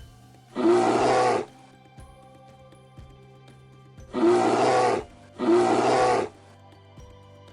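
A large wild animal roaring three times: one long roar about half a second in, then two more close together a few seconds later.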